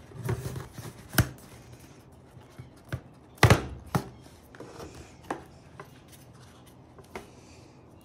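A cardboard watch box being handled and opened by hand on a wooden table: sliding, scraping and rustling, with several sharp knocks and taps. The loudest knock comes about three and a half seconds in.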